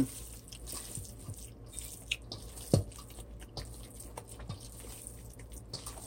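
Hands squishing and kneading a raw ground-turkey meatloaf mixture in a stainless steel bowl: soft wet squelches with scattered small clicks, and one sharper knock a little under three seconds in.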